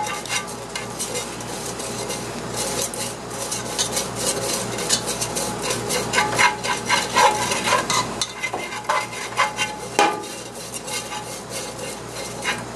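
Wooden chopsticks stirring and scraping around a nonstick pot of caramelized sugar, with irregular scrapes and light taps against the pan. The sugar is being stirred off the heat as the caramel for thit kho cools.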